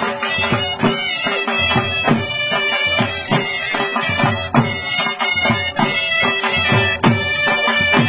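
Punjabi dhol drum beating a steady, driving ludi rhythm under a reed wind instrument that holds sustained, droning notes.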